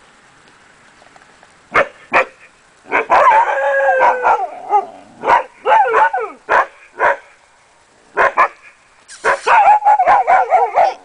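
Akita Inu puppies yapping and whining. Short sharp yaps begin about two seconds in, with drawn-out, wavering whines around the middle and again near the end.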